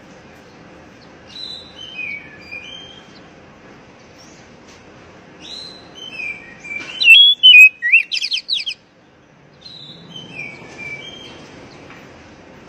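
Oriental magpie-robin (kacer) singing: short clear whistled phrases, then a loud burst of rapid, varied notes about seven seconds in, then more whistles, over a steady hiss.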